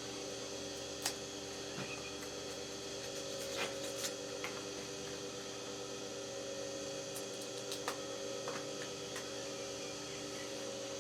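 A steady hum of several held tones, with a few faint sharp clicks or knocks scattered through it.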